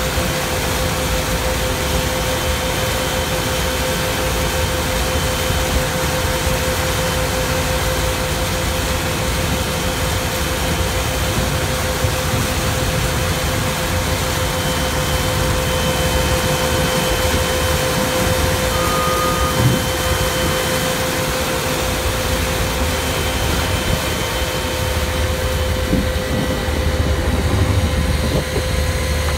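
Snow melter running steadily: a loud, even rushing noise with a constant hum over it.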